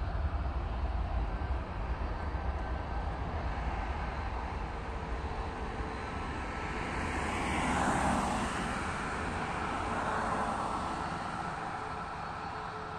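Jet airliner flying low past. Its engine noise swells to a peak about eight seconds in, with a pitch that falls as it passes, then fades, over a low rumble that eases off.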